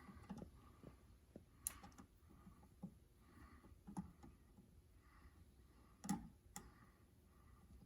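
Near silence with a handful of faint, scattered clicks and taps.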